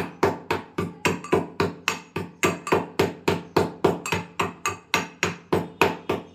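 Pestle pounding in a mortar with steady, even strikes, about four a second, crushing roasted black pepper and cardamom pods into a fine powder.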